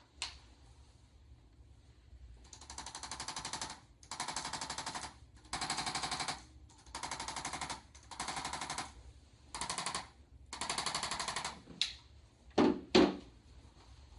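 Handheld chiropractic percussion instrument firing rapid pulses in seven bursts of about a second each, then two sharp knocks near the end.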